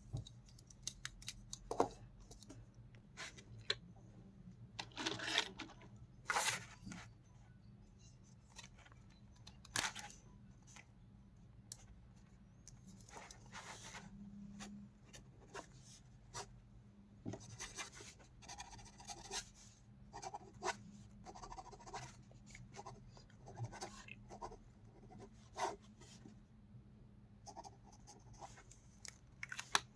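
Scattered light clicks, taps and rubs of pens and packaging being handled, over a faint steady low hum.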